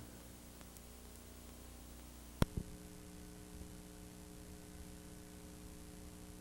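Faint electrical hum and hiss from blank videotape after the recording ends, broken by a sharp double click about two and a half seconds in; after the click the hum settles into a steadier drone.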